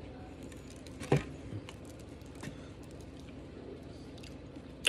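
Handling noise from a fried chicken sandwich and its plastic takeout container: a soft thump about a second in, a few faint ticks, and a short sharp click near the end, over a low steady room hum.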